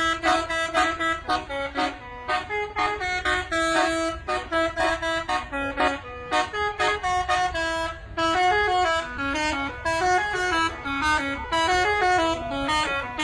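Bus telolet horn, a set of musical air horns, playing a tune in short pulsed notes that step up and down in pitch.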